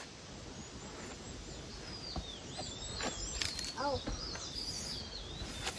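Forest birds calling, a run of high whistled, gliding notes, over a steady outdoor hiss.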